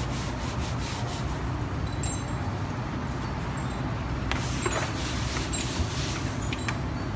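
A hand rubbing back and forth across a gritty, textured matte vinyl wrap, pressing it onto an ATM panel, with a few short sharp clicks and crackles about two-thirds of the way in and near the end. A steady low hum runs underneath.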